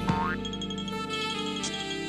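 Cartoon background music with a springy, boing-like sliding sound effect right at the start, then a run of quick repeated high notes.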